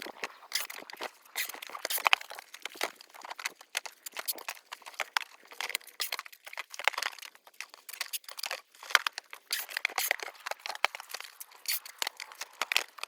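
Dense, irregular crinkling, rustling and clicking of packing material being handled as kabocha squash are boxed for shipping.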